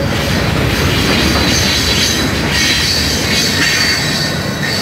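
Freight train of flatcars and tank cars rolling past close by: a steady rumble of steel wheels on rail, with a thin high wheel squeal that grows stronger after about a second and a half.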